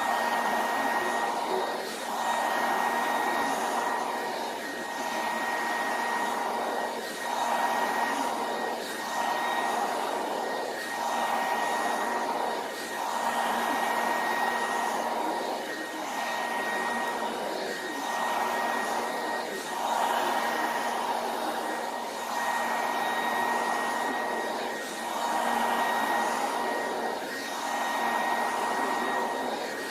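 Hand-held blow dryer running on heat, a steady rush of air with a constant whine. Its level swells and dips about every two seconds.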